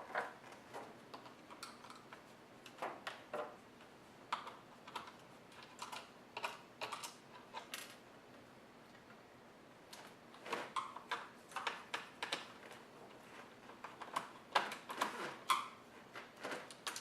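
Irregular light clicks and taps of a small screwdriver turning out the corner screws of an HP 2000 laptop's screen bezel, with handling of the plastic case; the clicking pauses briefly about halfway through.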